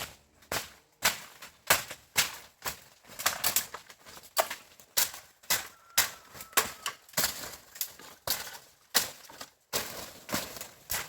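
Repeated sharp strikes, about two a second in an uneven rhythm, each short and loud with a brief ring after it.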